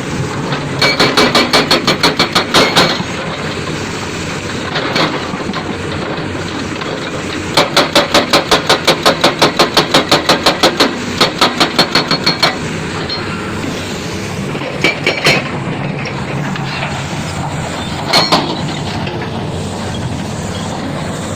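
A heavy construction machine's diesel engine running steadily, with bursts of rapid, even metallic hammering at about six strikes a second, the longest lasting about five seconds.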